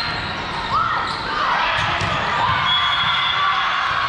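Indoor volleyball play on a gym court: the ball thudding on hands and floor, a few short squeaks of shoes on the court, over voices around the court.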